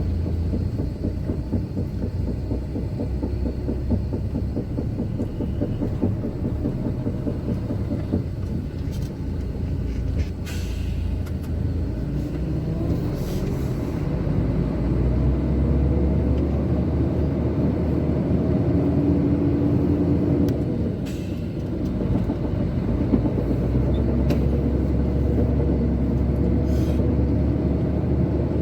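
Heavy truck's engine running inside the cab while driving, a dense low rumble that grows louder about halfway through as the truck picks up speed, with a few light clicks and rattles.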